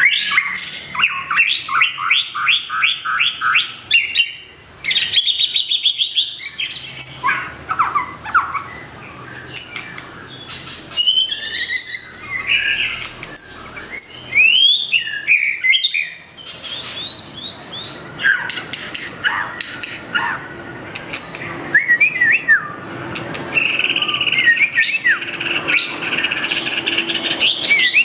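White-rumped shama singing a long, varied song. It runs through rapid strings of repeated notes, clear whistles and sliding up-and-down notes, in phrases separated by brief pauses.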